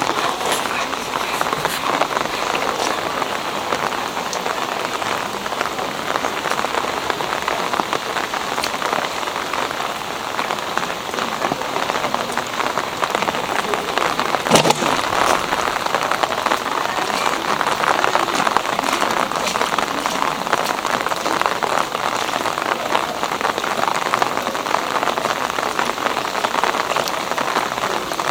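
Steady rain falling on a street, an even hiss of drops, with one sharp knock about halfway through.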